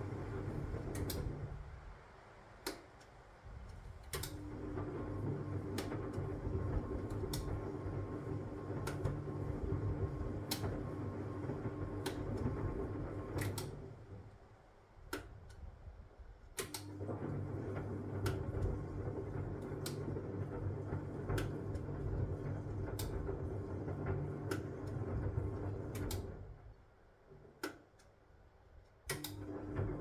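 Huwa Deluxe 65 washing machine turning its drum in the wash cycle: the motor hums for about ten seconds, stops for two to three seconds, then starts again, the usual left-right reversing of a wash action, with three such pauses. Sharp clicks come from the tumbling load throughout.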